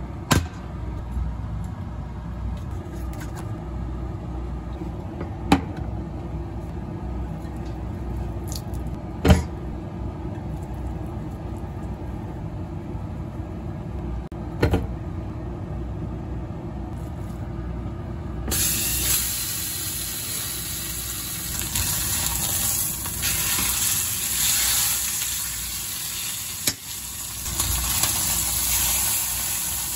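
A few sharp knocks of a stainless steel skillet and utensils on a glass-top stove over a steady low background, then, about two-thirds of the way in, a sudden loud sizzle that keeps going: a beef roast searing in the hot, oiled skillet.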